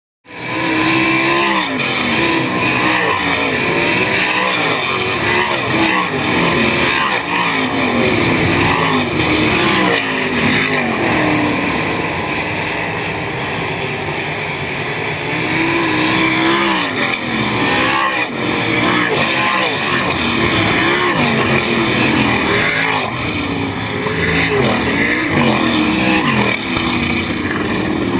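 A field of dirt-track sprint cars racing past, their V8 engines loud and continuous, each pass swelling and falling in pitch as the cars go by and into the turn.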